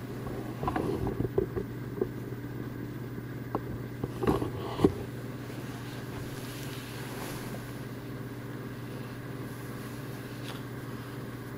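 A person moving about and bending down, with shuffling and a few light knocks in the first couple of seconds and again about four seconds in, over a steady low electrical hum.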